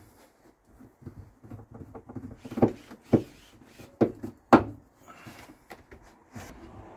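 Clicks and knocks from a concealed cabinet hinge on a wooden wardrobe door being adjusted by hand, with four sharp knocks in two pairs about halfway through.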